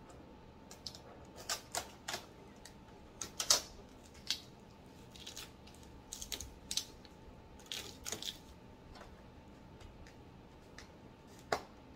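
Blue packing tape being peeled off a plastic inkjet printer and its parts handled: scattered short crackles and clicks at an irregular pace, the loudest about three and a half seconds in.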